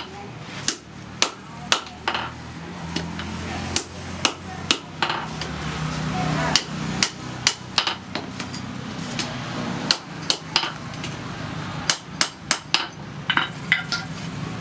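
Hand hammer striking steel on an anvil while forging blacksmith's tongs: sharp metallic blows in irregular runs of about two a second, with short pauses between runs. A steady low hum runs underneath.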